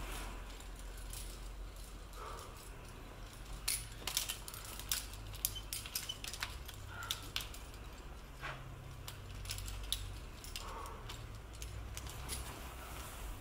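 Climbing carabiners and quickdraws clinking in a quick scatter of sharp metallic clicks, thickest in the middle of the stretch, over a low steady rumble.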